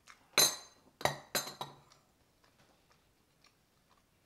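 Ceramic coffee cups set down on ceramic saucers: one sharp clink with a short ring about half a second in, then three quicker clinks a second later.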